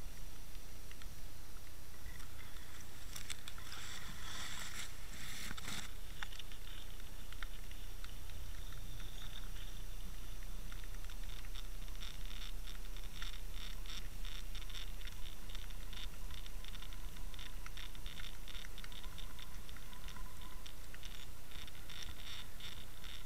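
Underwater sound picked up by a Water Wolf fishing-line camera in the water: a steady low rumble with irregular crackling clicks over it. The crackle thickens for a few seconds near the start and comes in rapid clusters through the second half.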